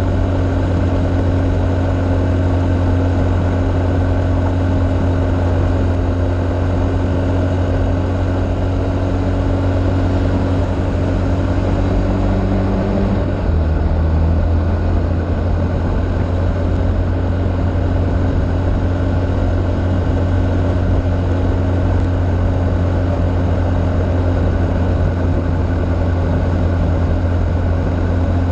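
Off-road vehicle's engine running steadily at speed on a gravel road, with the drone of the ride throughout. Its pitch steps down slightly about halfway through.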